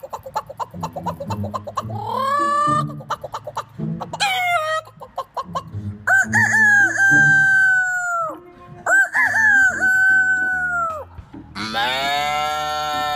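Four long pitched calls, each rising, held and then dropping away, with rapid clicking in the first two seconds, over background music.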